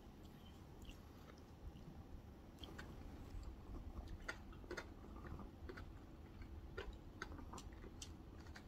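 Quiet chewing of flaky chocolate pastry, with scattered small crunches and clicks.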